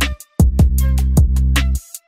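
Background music: a beat of sharp drum hits over a heavy bass line, cutting out briefly twice, about a quarter second in and again just before the end.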